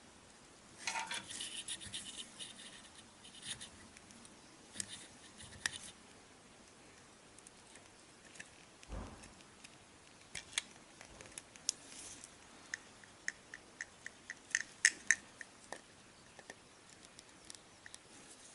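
Small hand-tool handling while rigging a wooden ship model: a snip of cutting nippers trimming a line, scratchy rustling, and scattered light clicks of the tools against the wooden hull. Near the end comes a quick run of small clicks, about three a second.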